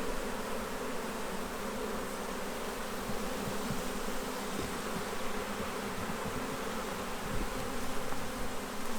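Many honey bees buzzing steadily around an opened hive during a frame inspection, a dense even hum with no pauses.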